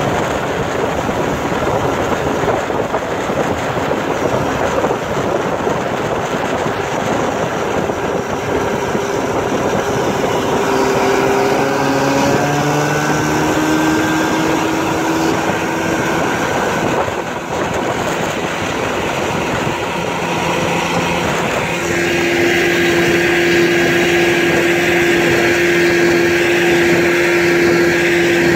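1967 Evinrude Fastwin 18 hp two-cylinder two-stroke outboard running at speed under way, with wind on the microphone. Its pitch climbs a little around the middle, then holds steady and slightly louder for the last several seconds.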